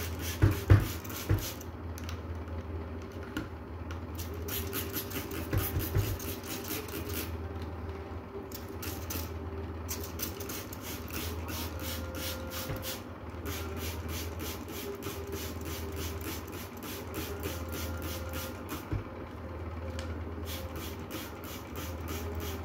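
Hand trigger spray bottle misting water onto freshly sown seeds in coco-peat cups, squeezed over and over in short sprays, several a second, with a few knocks near the start and about six seconds in. A steady low hum runs underneath.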